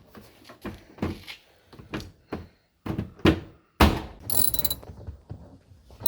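Car interior trim being pushed back into place: a string of knocks and thunks, the loudest a little before four seconds in, followed by a short burst of ratchet-wrench clicking.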